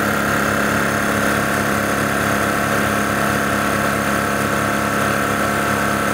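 DAVV SCU 100 electric high-pressure scuba compressor running steadily while filling a carbon fibre tank. A constant hum with a high whine on top and a regular low pulse about five times a second.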